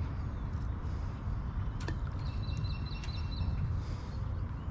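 Outdoor ambience: a steady low rumble, with a bird chirping a quick run of high notes about two seconds in and a few sharp clicks.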